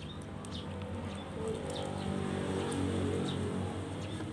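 Small birds chirping briefly a few times over a steady low hum.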